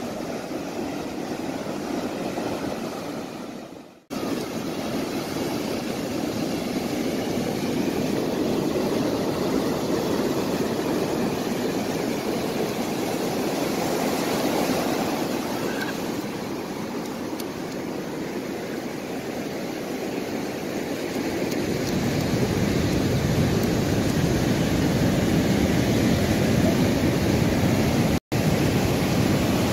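Ocean surf breaking and washing up a sandy beach as a steady rushing noise, with wind buffeting the microphone as a low rumble that grows stronger about two-thirds of the way through. The sound cuts out abruptly for a moment about four seconds in and again near the end.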